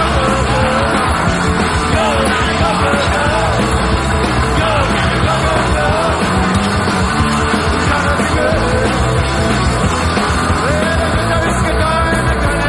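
Rock music with a singing voice, loud and steady.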